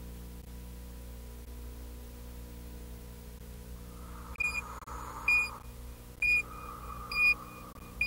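Steady low hum, then from about halfway in an electronic heart-monitor beep sounding regularly, a little faster than once a second, with a soft hiss coming and going between the beeps.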